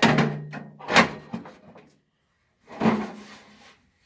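Sheet-steel toolbox parts knocking and scraping against each other as a piece is forced into the vintage toolbox and won't fit: a few sharp metal knocks about a second apart with short scrapes between them.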